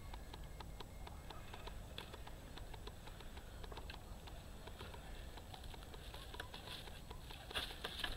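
Faint, irregular small ticks and rustles of hands unhooking a carp on the mesh of a landing net. A louder burst of rustling comes near the end as the fish is lifted.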